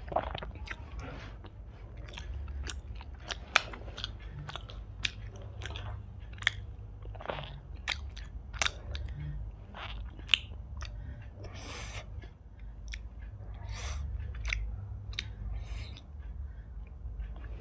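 Close-miked chewing and biting of Indian sweets, with many short, sharp mouth clicks and smacks scattered throughout, over a low steady hum.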